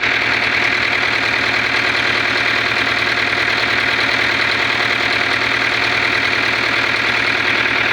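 Diesel dump truck engine idling steadily.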